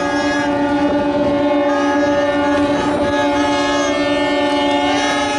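Several boat horns sounding together in one long, steady, unbroken chord over wind and sea noise.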